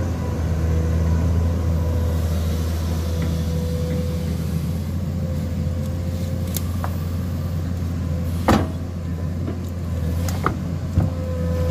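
Komatsu PC210 hydraulic excavator's diesel engine running steadily in deep mud, with a thin steady whine above the low drone. A single sharp knock comes about eight and a half seconds in, with lighter clicks near the end.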